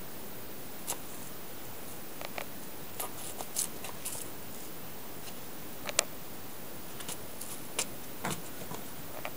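Scattered light taps and scratches of a kitten's paws and claws on the floor as it bats at a cockroach, with the sharpest tap about six seconds in. A steady hiss runs underneath.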